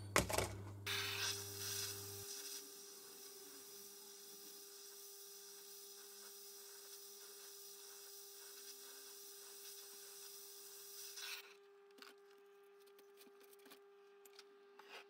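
A small handheld gas blowtorch burns with a faint, steady hiss, heating a cast-iron motorcycle cylinder head to loosen an old valve guide. The hiss stops about eleven seconds in. A short clatter of metal tools being set down comes at the very start.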